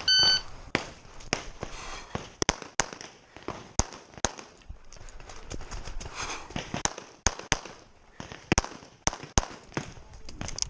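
Electronic shot timer beep at the start, then a handgun fired in rapid strings of shots, many in quick pairs, about fifteen in all, with a short pause about six seconds in during the stage run.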